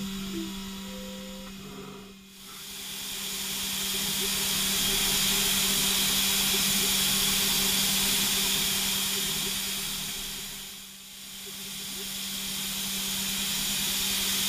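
Five-axis CNC mill machining a P20 steel core with a circle-segment (barrel) end mill: a steady hiss of coolant spray over the spindle's steady hum. The sound fades down and swells back up twice, about two seconds in and about eleven seconds in.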